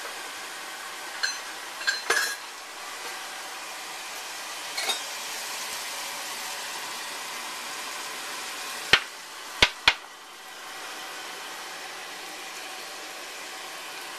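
A metal spoon clinking and knocking against a stainless steel pot over a steady hiss: a few scattered clinks in the first five seconds, then three quick sharp knocks about nine seconds in.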